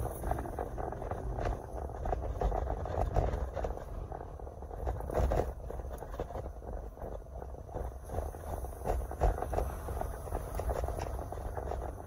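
Car driving on city streets, heard from inside the cabin: a steady low road and engine rumble with scattered small knocks and rattles.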